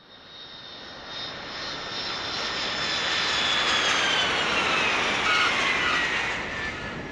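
Jet aircraft flying over: a rush of engine noise that swells over a few seconds and eases off near the end, with a whine that slides down in pitch as it passes.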